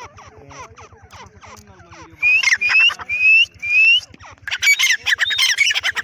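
Female grey francolin calling: a run of four loud, rising whistled notes about two seconds in, then a fast burst of harsh, overlapping chattering calls near the end.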